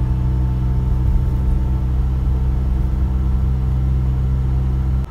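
Isuzu FVR truck's diesel engine running at a steady cruise, heard from inside the cab, with a constant low hum and road rumble that does not change in pitch.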